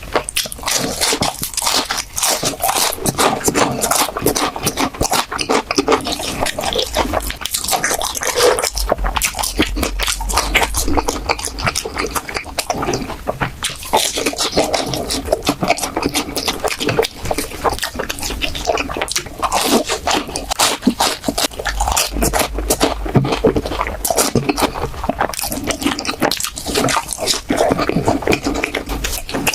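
Close-miked eating sounds: continuous wet chewing with irregular crunches and squishes of food in the mouth.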